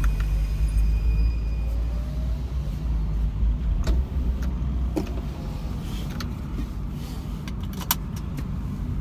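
Car driving, heard from inside the cabin: a steady low rumble of engine and road noise, with a few light clicks in the second half.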